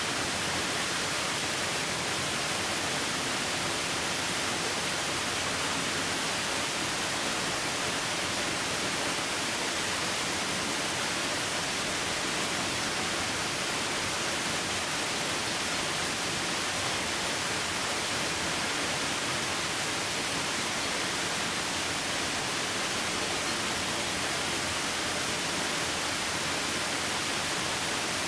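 Waterfall: falling water in a steady, unbroken rush with a bright hiss.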